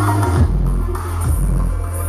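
Live electronic rap music played loud over a concert PA, with a heavy, sustained bass line and a pounding beat, heard from within the audience.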